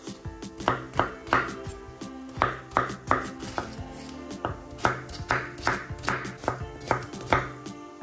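Kitchen knife chopping food on a cutting board, sharp, irregular cuts about two a second, over background music.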